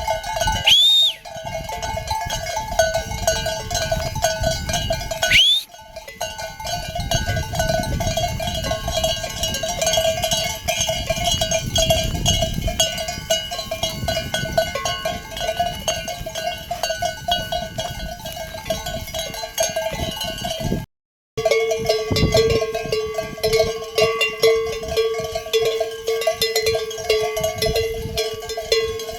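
Many bells on a flock of sheep and goats clanking and jangling unevenly as the animals move. The sound breaks off abruptly a few times, with a moment of silence about 21 seconds in.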